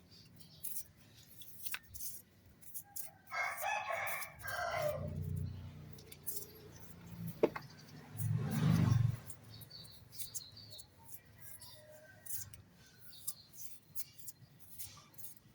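A rooster crows once, about three seconds in. Light clicks and knocks are scattered throughout, and there is a short low rumble about eight seconds in.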